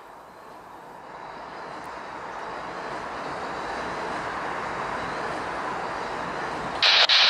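Noise of an approaching vehicle, growing steadily louder.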